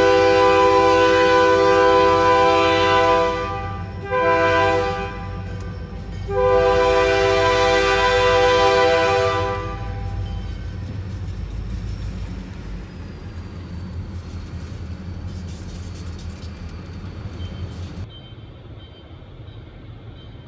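Diesel locomotive's air horn sounding a long blast, a short blast and a second long blast, the end of the standard grade-crossing warning. After that, the low rumble of the freight train passing continues and grows quieter near the end.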